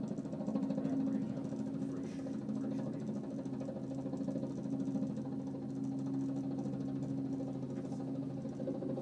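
Small training helicopter in a low hover, then lifting and climbing, its engine and rotor giving a steady drone with a few low, even tones.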